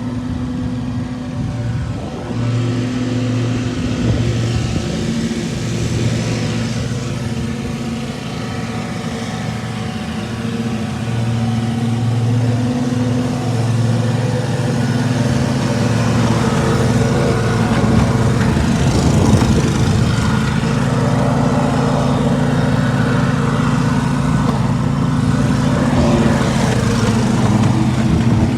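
An engine running at a steady speed throughout, slightly louder in the second half.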